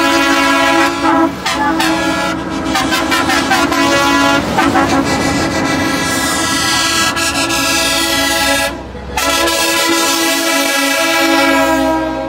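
Air horns on a convoy of passing semi-trailer trucks, blasting long chords almost without a break. They drop out briefly about a second and a half in and again about nine seconds in, then sound again.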